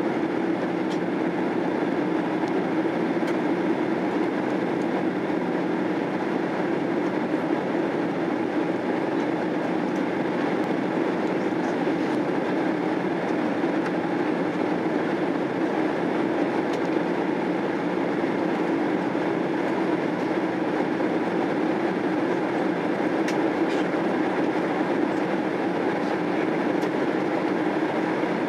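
Steady cabin noise inside a Boeing 767-300 airliner in flight: its engines and the rushing airflow merge into a constant hum that does not change, heard from a seat behind the wing.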